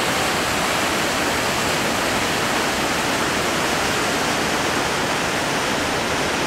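White water of the Maligne River rushing through a narrow rock canyon: a steady, even rush of water.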